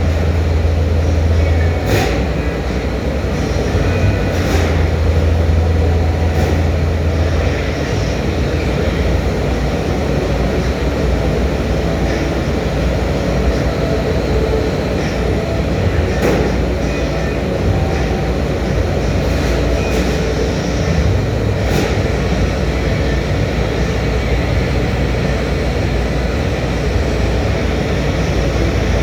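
Annealing furnace running with its loaded conveyor belt in reverse: steady, loud machinery noise with scattered sharp clanks. A low hum under it stops about seven seconds in.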